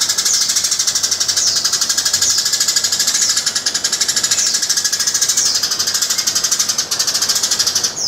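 Caged Eurasian tree sparrow singing: a fast, unbroken rattling chatter with a high note that slides downward about once a second.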